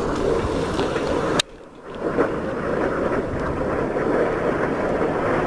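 Steady outdoor rumbling noise with wind buffeting the microphone. The sound cuts out abruptly for about half a second, a little over a second in, then resumes.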